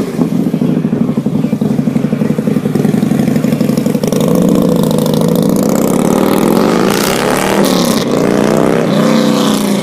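Touring motorcycle engine running loud at close range with a pulsing rumble. It gets louder as the bike rides past about four seconds in, then revs with its pitch sweeping up and down as it pulls away.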